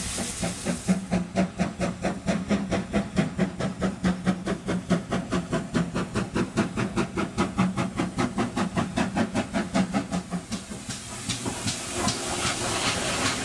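GWR steam locomotive working hard, its exhaust beating in rapid, even chuffs about four a second over a steady low tone. About ten seconds in the chuffs stop, and steam hiss with scattered clanks follows as the train passes.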